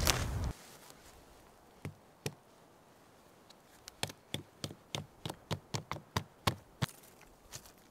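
A tent stake being pounded into gravelly ground with a rock: two knocks, then a run of about a dozen sharp knocks at roughly three a second. It opens with half a second of footsteps on a trail.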